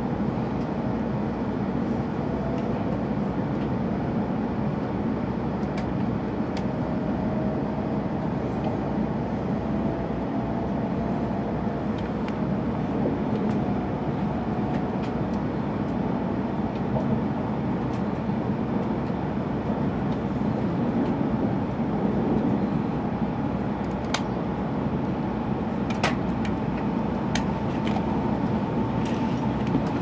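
Steady running noise of a W7 series Hokuriku Shinkansen heard inside the passenger car: a low, even rumble with a faint tone that rises slowly in pitch, and a few sharp ticks near the end.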